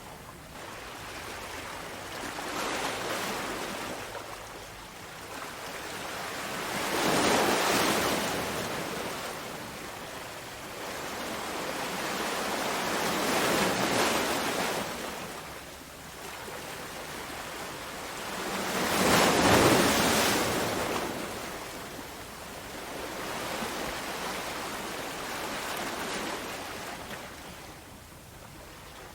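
Ocean surf, waves rolling in one after another about every five to six seconds, each swelling and fading away, the loudest about two-thirds in.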